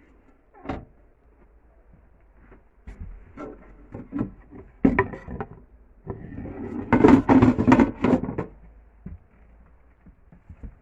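Handling noises: a series of short knocks and clicks, with a dense stretch of clattering about seven to eight seconds in.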